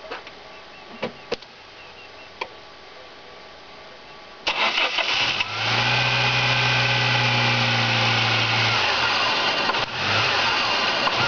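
Great Wall Safe SUV petrol engine starting suddenly about four and a half seconds in, then running at idle. A strong low hum runs for about three seconds and then drops away, with a brief dip in the running near the end. This is the uneven idle that the owner calls strange.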